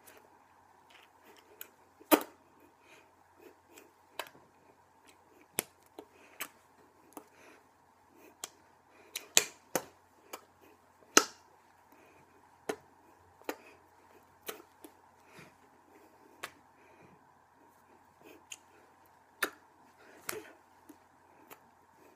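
Irregular sharp taps and slaps of hands meeting during American Sign Language signing, roughly one a second, with a few louder ones. A faint steady hum runs underneath.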